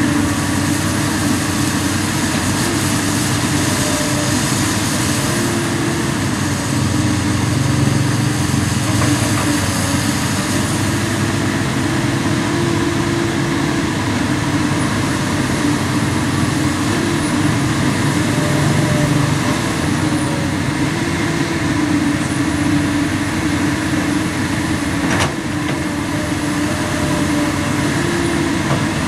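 Komatsu PC200 excavator's diesel engine running steadily under working load as the boom and arm move, with one short sharp knock near the end.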